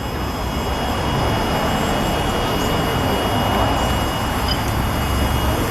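Steady noise of road traffic on a busy city street, an even rumble without breaks.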